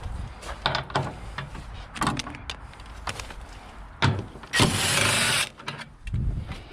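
Hand tools clicking and knocking on metal bolts and panels, with a loud burst of noise lasting about a second near the middle, like a power tool running briefly.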